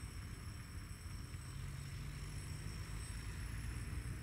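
2TE10M diesel locomotive's two-stroke opposed-piston 10D100 engines running with a low, steady rumble as it approaches hauling a freight train.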